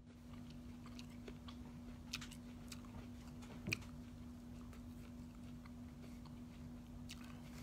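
Faint, scattered mouth clicks and smacks of chewing close to the microphone, over a low steady hum, with one louder click a little past halfway.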